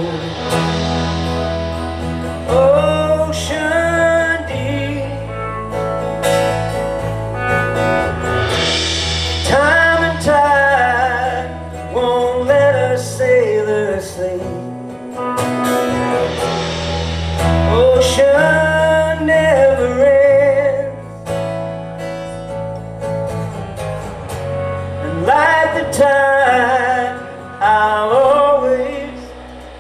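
Live rock band playing: drums with cymbals, low bass notes and guitars, with a wavering lead melody line rising over them several times.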